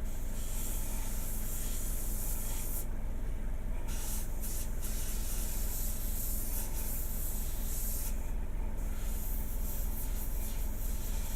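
Airbrush spraying black preshade paint: a steady high hiss that cuts off and restarts a few times as the trigger is let go, over a steady low hum.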